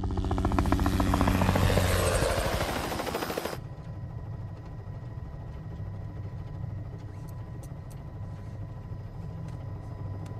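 Helicopter rotor chopping loudly in a fast, even beat. About three and a half seconds in it cuts abruptly to a quieter, steady low drone that continues.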